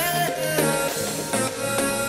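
Background music with plucked string notes over a steady beat.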